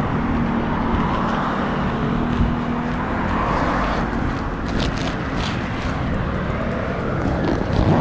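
Steady road-vehicle noise, with engine hum and traffic, and a few brief crackles about five seconds in.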